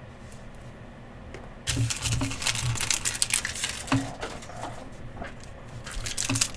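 Trading card packs and cards being handled: the crinkle of a torn wrapper and quick clicks and flicks of cards, starting about a second and a half in.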